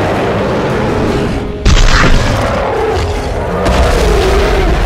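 Dubbed dinosaur-fight sound effects over a low, steady rumble: a sudden deep boom about one and a half seconds in, then a wavering, growl-like sound. Music runs underneath.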